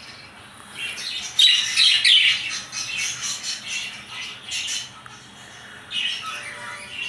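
Lovebirds and finches chirping and squawking together in a continuous overlapping chatter of high calls. The chatter is loudest from about one and a half to two and a half seconds in, with another burst near the end.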